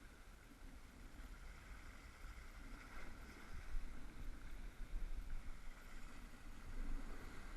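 Sea water washing against shore rocks, a steady hiss that swells a few times, with a low wind rumble on the microphone.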